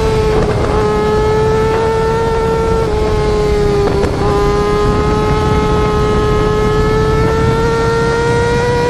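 Yamaha R6 inline-four sport bike exhaust held at very high revs, with two quick gear shifts, about half a second and four seconds in, each briefly dropping the pitch before it climbs again.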